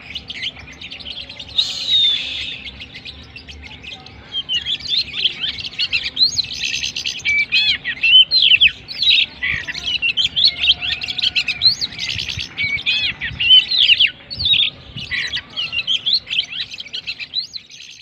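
Oriental magpie-robin (kacer) singing a fast, varied song of high whistles, chirps and slurred notes. After a single short phrase near the start, the song runs almost without a break from about four seconds in until just before the end.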